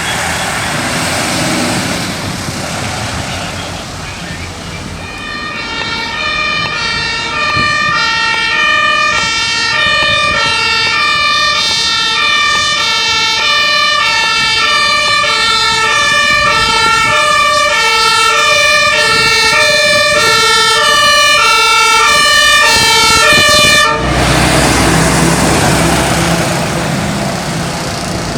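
German-style two-tone emergency vehicle siren (Martinshorn) alternating between two pitches. It comes in about five seconds in, grows louder, and cuts off suddenly near the end, leaving a vehicle's engine and road noise.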